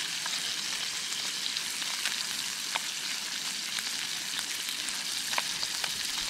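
Trout frying in plenty of oil in a stainless steel camping frying pan over a gas canister stove: a steady sizzle, with a few sharp clicks standing out here and there.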